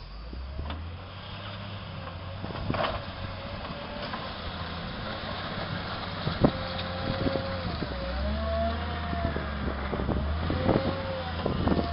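Volvo wheel loader's diesel engine running and growing louder as the machine comes closer, with a whine that rises and falls in pitch over the second half. Scattered knocks and clicks come thicker near the end as the lowered bucket pushes rubble.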